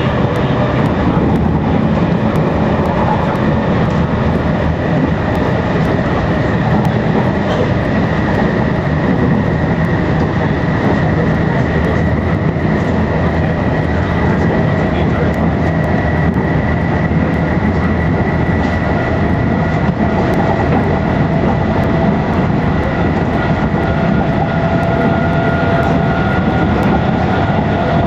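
Metro-Cammell electric multiple-unit train running at speed, heard from inside the passenger car: a steady rumble of wheels on track with a thin, high whine held above it.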